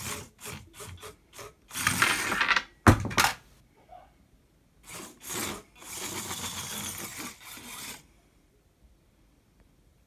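Six-wheel-drive antweight combat robot driving in short stop-start bursts, its wheels and plastic chassis scraping and rattling on a wooden tabletop, with a sharp knock about three seconds in. The noise stops about eight seconds in.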